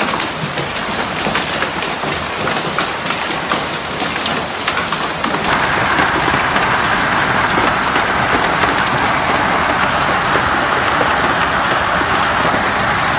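A hailstorm with stones pelting down: many sharp ticks and clatters of individual impacts over a dense rush. About five seconds in it gives way abruptly to a steadier, denser roar of heavy hail and rain.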